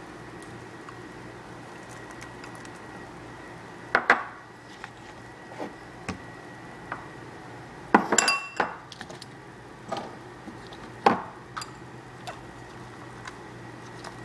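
Bowls knocking and clinking while sliced vegetables are tipped into a wooden salad bowl: a sharp knock about four seconds in, a short clatter of several knocks around eight seconds, and another knock near eleven seconds.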